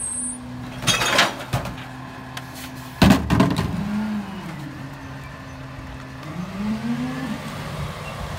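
Freightliner M2106 garbage truck's diesel engine idling with a steady hum while a recycling bin is emptied into the Heil Durapack 5000 rear-loader hopper. Recyclables clatter in about a second in, and the bin bangs loudly against the hopper edge about three seconds in. Near the end the engine revs up.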